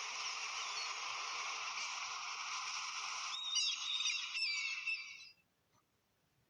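Sea sound effect: a steady rush of surf with gulls calling over it from about three and a half seconds in. It cuts off suddenly about five seconds in.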